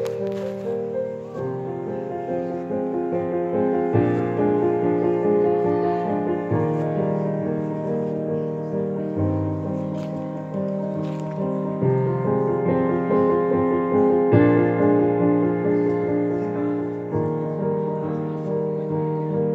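Minimal music played on a Roland digital piano: repeating patterns of sustained notes over a low bass note that changes about every two and a half seconds.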